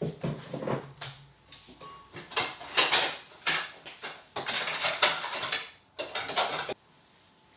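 Dishes and containers being handled and set down: a series of clattering, rustling noises, each up to about a second long, that stop shortly before the end.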